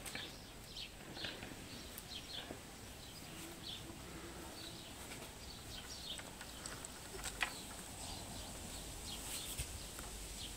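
Small birds chirping, many short high calls repeated over and over, faint in the background. A few sharp clicks are heard, the loudest about seven seconds in.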